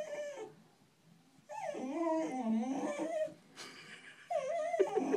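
A dog whining and whimpering in wavering, gliding cries, in three bouts: one trailing off at the start, one from about a second and a half in, and another near the end. It is the fearful whine of a dog scared of two kittens.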